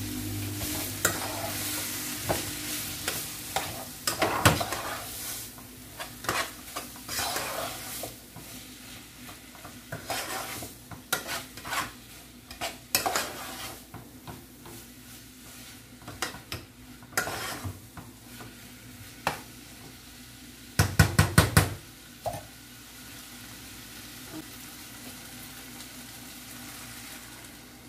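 A spoon stirring and scraping a ground beef mixture in a saucepan while it sizzles, in repeated strokes. About three-quarters of the way through, a quick run of about six sharp knocks on the pan.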